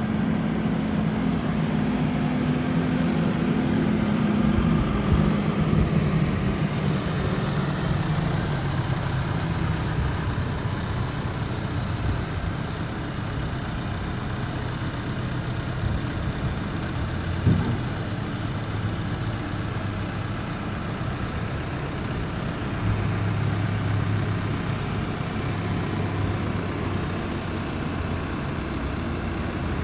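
Case diesel engine of a 2015 Case 590SN tractor loader backhoe running, its pitch dropping after several seconds as it settles to a lower speed, with a single sharp knock a little past halfway.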